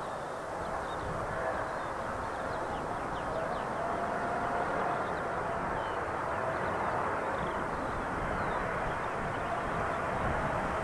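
Boeing 777-200 airliner's jet engines on final approach: a steady rushing noise with a faint whine, slowly growing louder as the aircraft nears.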